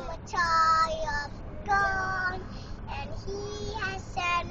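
A young child singing a song in held, clearly pitched notes, phrase by phrase. Underneath is the low, steady rumble of a moving car's cabin.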